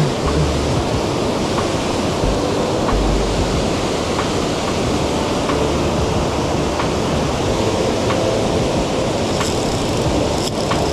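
Steady rushing of water spilling over a low weir, an even, constant noise. A few light clicks come near the end.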